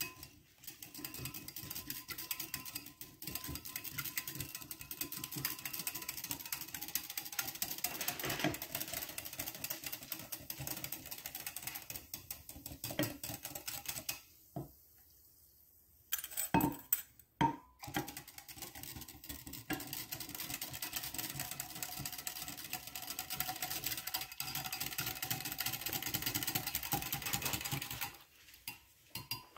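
Stainless steel wire whisk stirring fast in a glass measuring cup, its tines clicking and rattling against the glass as lye is mixed into water. It pauses for about two seconds around halfway through, and briefly again near the end.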